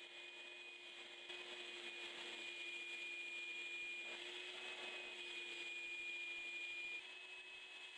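Shop vac running steadily with a high whine, sucking polystyrene pellets out of a stuffed toy; it gets a little louder about a second in and drops back near the end.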